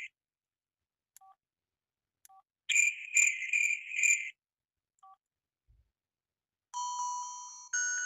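Sony Ericsson T608 mobile phone ringtones: a high, pulsing trill ring lasting about a second and a half, with short beeps before and after it. Near the end a different, melodic ringtone of held notes begins.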